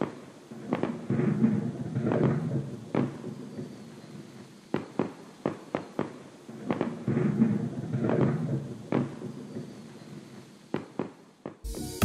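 Firework-like bangs followed by crackling, the same sequence repeating about six seconds later, as an intro sound effect. Electronic music with a heavy beat starts near the end.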